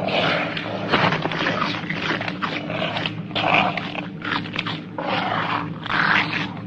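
Film-soundtrack dinosaur growls and roars, a rapid string of rough cries one after another over a steady low hum.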